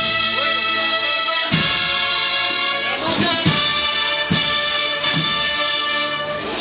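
Brass band playing a processional march: sustained brass chords with a few drum strikes.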